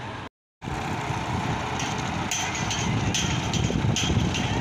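Diesel engines of railway track-laying gantry machines running steadily, with short higher rasping sounds repeating about once or twice a second. A brief dropout to silence falls just after the start.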